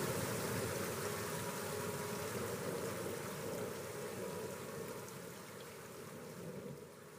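Steady rushing noise of heavy rain and running water, gradually fading out.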